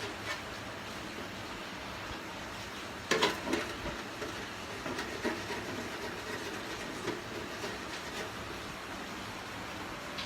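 Scraping and clicking of hand work on a punctured refrigerator evaporator, with a loud flurry of scrapes about three seconds in and scattered lighter taps after, over a steady background hiss.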